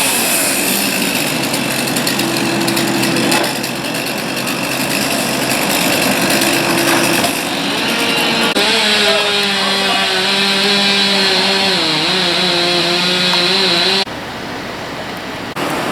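Gas chainsaw engine running steadily, its pitch shifting a few times. The sound drops off suddenly about fourteen seconds in and picks up again near the end.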